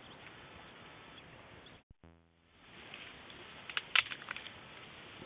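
Twigs and brush snapping and crackling in a quick cluster about four seconds in, as a silverback mountain gorilla pushes into the undergrowth, over a steady outdoor hiss. The sound drops out briefly just before.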